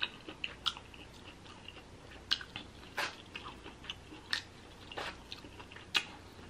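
A person chewing and eating with their mouth close to the microphone: irregular soft mouth clicks and smacks, a few sharper ones spread through.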